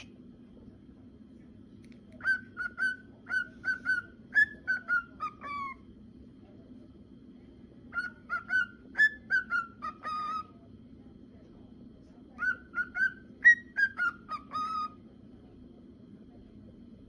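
Male cockatiel whistling its song: the same phrase of short, clear whistled notes, given three times, each ending in a few falling notes. A low steady hum runs underneath.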